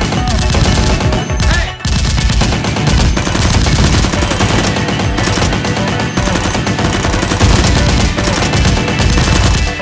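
Rapid, near-continuous automatic gunfire sound effects over background music, with a short break about two seconds in.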